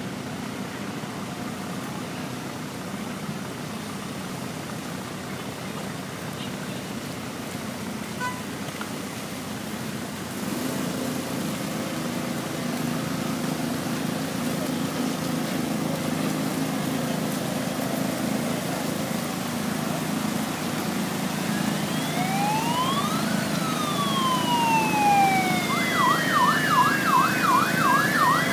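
A steady low rumble of vehicles and crowd that slowly grows louder. About 21 seconds in, an emergency vehicle siren starts wailing, its pitch rising and falling, and near the end it switches to a fast yelp, about four swoops a second, getting louder.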